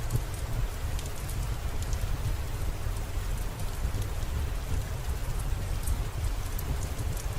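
Steady rain falling over a low rumble, with scattered sharp ticks of drops.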